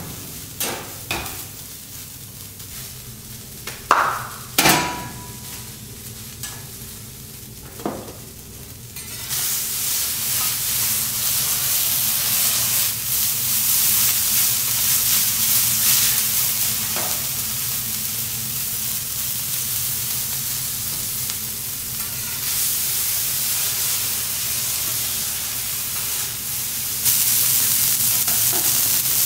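A few sharp metal clanks of spatulas on a teppanyaki steel griddle, one ringing briefly. About nine seconds in, food starts sizzling loudly on the hot griddle, a steady frying hiss that grows louder near the end.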